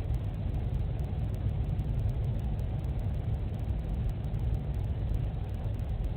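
Steady low rumble with no distinct events, heard through a home security camera's microphone, which cuts off the higher sounds.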